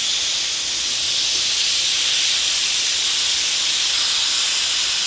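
Compressed shop air hissing steadily out of an open air-line outlet over a hygrometer probe: a loud, even, high-pitched hiss.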